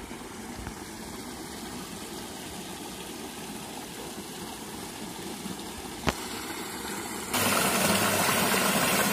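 Muddy water rushing along a field channel and splashing over rocks, a steady hiss that gets louder about seven seconds in.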